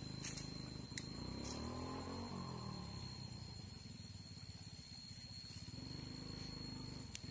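A small motor engine running, its pitch rising and falling twice, over a steady high-pitched tone and a few sharp clicks.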